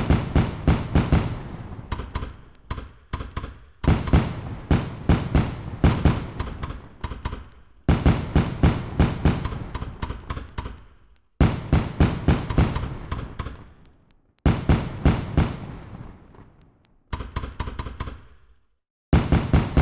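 Fireworks bursting in repeated volleys: every three to four seconds a group of several quick, sharp bangs, each group fading away and then cut off abruptly before the next begins.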